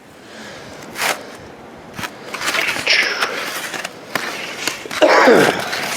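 Wooden cross-country skis scraping and sliding over snow, with a couple of sharp clicks. About five seconds in, a short vocal sound falls steeply in pitch.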